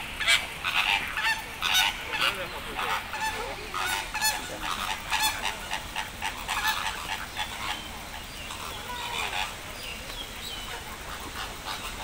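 A flock of flamingos calling: many overlapping goose-like honks, thick for the first several seconds and thinning out later.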